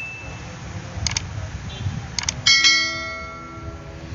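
Sound effects of a subscribe-button animation: two sharp double clicks about a second apart, like mouse clicks, then a bell ding about halfway through that rings out and fades, over a low steady rumble.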